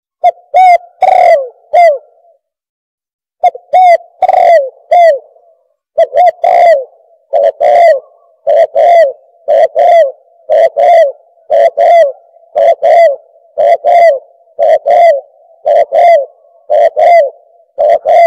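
Spotted dove cooing loudly: short rounded coos repeated in quick groups, with a couple of brief pauses in the first six seconds, then settling into a steady run of paired coos about once a second.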